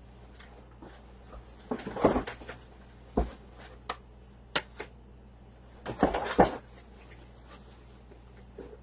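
Scattered knocks and clatters of things being moved and handled, with the busiest bursts about two seconds in and again about six seconds in, over a faint steady hum.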